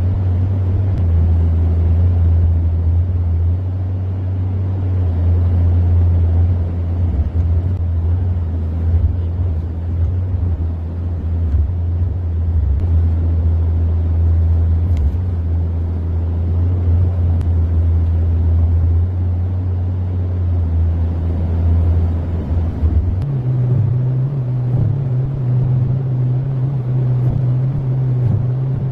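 Heavy diesel engine of an excavator or truck running steadily with a deep, even hum; about 23 seconds in it steps up to a higher, steady engine speed.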